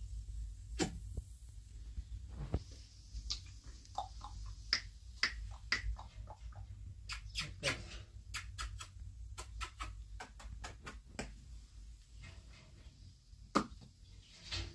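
A series of sharp, irregular clicks and smacks at close range, coming several a second at times, with short gaps, over a low steady hum.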